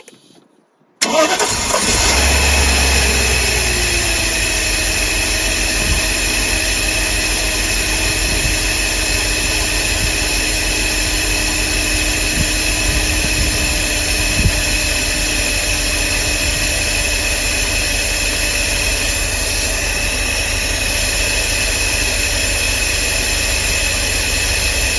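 An engine starts suddenly about a second in and settles into a steady idle, its pitch falling over the first few seconds and then holding level.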